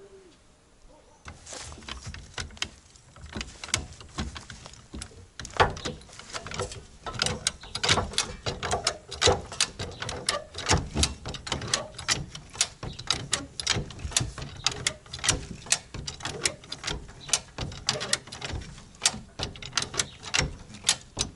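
A quick, irregular run of sharp knocks and clanks, several a second, starting about a second and a half in.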